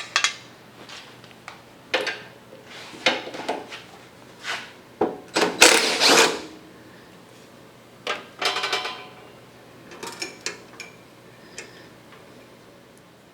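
Hand tools and metal parts being handled: a series of irregular clanks and knocks, with a longer scraping rattle about six seconds in.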